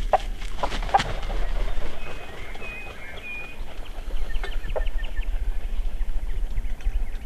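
Wild turkey tom close by giving a few short, sharp clucks in the first second, with small birds chirping a few times in the middle and wind rumbling on the microphone.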